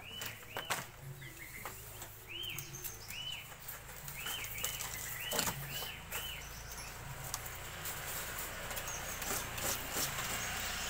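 A small bird calling a string of short arched chirps, about ten in the first six seconds, mixed with scattered sharp clicks.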